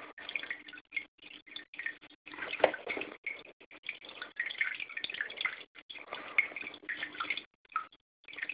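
Small pump-fed terrarium waterfall trickling and dripping into its pool, irregular and splashy, over a faint steady hum.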